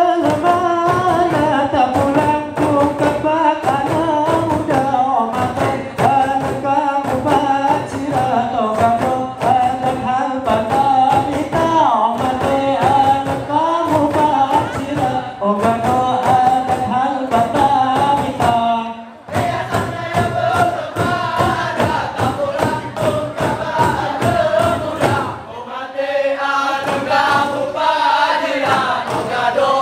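Male group singing and chanting in unison while beating rapa'i frame drums in a fast, steady rhythm, in the Acehnese Rapa'i Geleng style. The song breaks off briefly about two-thirds of the way through, then resumes.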